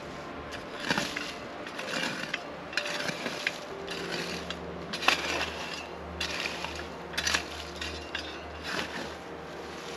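A metal shovel scraping and digging into ash and dirt in a stone fire ring, with repeated gritty scrapes and crunches about every one to two seconds.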